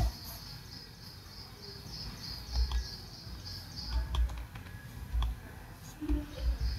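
Calculator keys being pressed and the calculator handled on the desk: irregular soft clicks and low taps. A continuous high chirping runs behind them.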